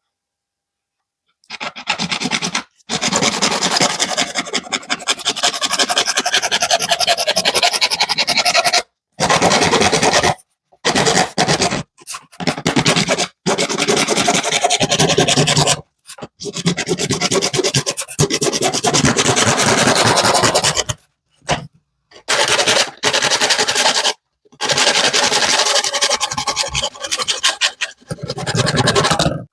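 A pipe being sawn through by hand, a fast steady rasping of strokes. It stops and starts abruptly several times.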